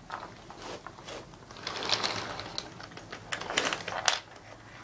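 Toy train cars and track pieces clicking and rattling as a toddler handles them, in irregular bursts about two seconds in and again near the end.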